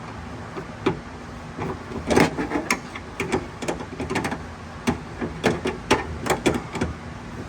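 Irregular clicks, knocks and light rattles, a few per second, of hand tools and parts being worked inside an SUV door while the door panel and handle are taken apart.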